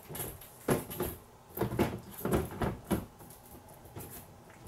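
Acrylic display case cover knocking and clicking against its acrylic base as it is shifted by hand to line up with the base's slots: a string of light, irregular knocks.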